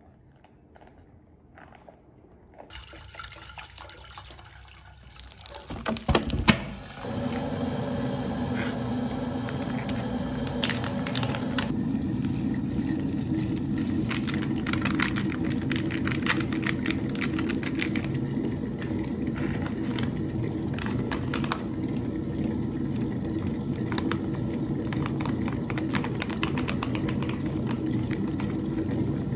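Paper packaging handled, then an electric kettle heating water: a steady rushing noise that sets in about a quarter of the way through and cuts off at the end. Over it come the crinkling and tapping of a powder stick sachet and a plastic bag being emptied into a ceramic bowl.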